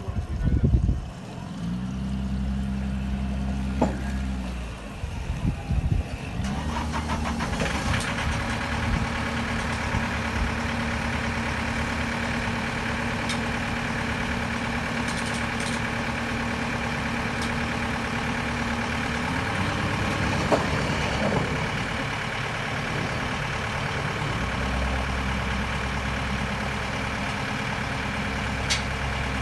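An engine running steadily, breaking off a few seconds in, then running on with a steady note that shifts twice later.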